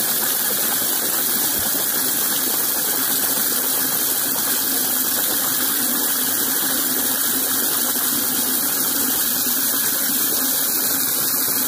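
Water running steadily into a plastic chicken waterer as it is filled.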